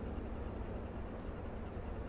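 Steady outdoor noise of a flowing river, with a low, unsteady rumble of wind on the microphone underneath.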